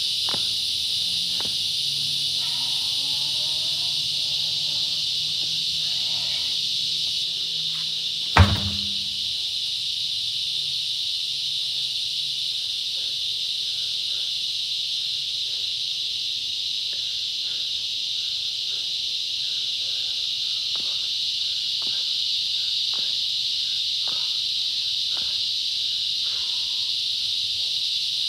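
A steady high insect chorus throughout, with one loud heavy thud about eight seconds in as a large truck tire is flipped over and slams onto the ground.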